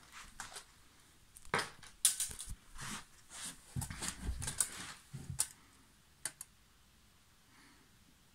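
Handling noise: irregular clicks, rattles and rustles of plastic LEGO parts and a tape measure being handled, busiest in the middle and stopping with a last sharp click about six seconds in.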